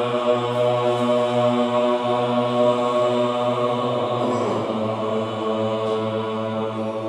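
Low Buddhist chanting, voices held on one steady, low pitch.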